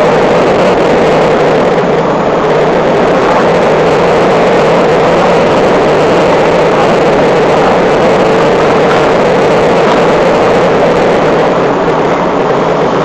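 Molding furnace's burner flame burning steadily: a loud, even rushing noise with a faint low hum beneath it.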